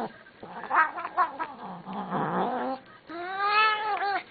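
Domestic cat yowling close up: uneven, low cries mixed with rustling for the first few seconds, then a long clear meow about three seconds in that rises and falls in pitch, followed by a short one.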